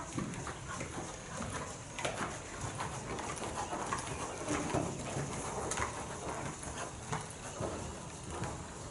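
Hoofbeats of a ridden horse trotting on sand arena footing: a run of soft, uneven thuds.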